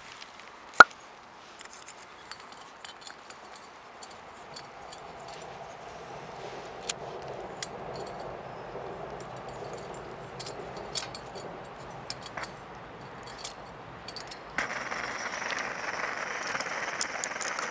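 Brass SVEA 123R-type camp stove (Pak-Cook clone) being lit: a sharp click about a second in, then small metallic clinks over a soft flame sound, until near the end the burner catches with a sudden steady hiss.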